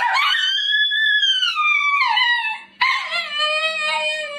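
Dog howling: one long howl that rises and then falls in pitch, then, after a short break, a second lower, steadier howl with a slight waver.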